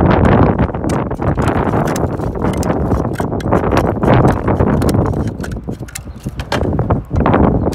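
Natural roofing slate being trimmed to a rounded edge with a hand slate cutter: a run of irregular sharp snaps and cracks as the blade bites through the stone, over a steady wind rumble on the microphone.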